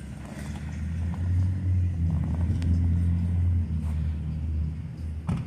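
A low, steady rumble that swells within the first second or so, holds for a few seconds and then fades away. A single sharp knock comes near the end.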